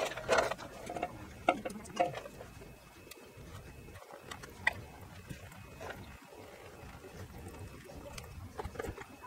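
Clicks and knocks of locking pliers and metal parts being handled as a small engine's rubber fuel line is clamped off at the carburetor. They come thickest in the first two seconds, then as a few scattered ticks, over a faint trickle of gasoline draining into a plastic bucket.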